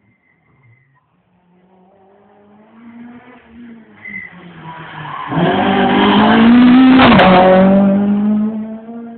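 Rally car approaching at speed and passing close by, its engine revving hard. It grows from faint to loud about five seconds in, with a brief dip and recovery in engine pitch around seven seconds, then fades away.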